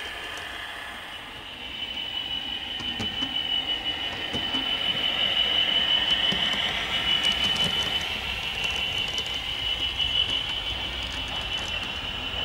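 OO-gauge model train running on the layout: a steady high-pitched whine that grows louder about two seconds in, with scattered light clicks.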